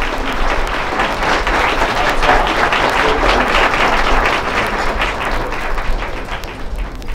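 Audience applauding, dense clapping that dies down over the last couple of seconds.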